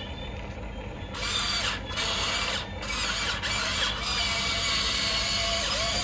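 Huina 1594 RC excavator's electric motors whirring as the boom, arm and body move, starting about a second in and pausing briefly twice.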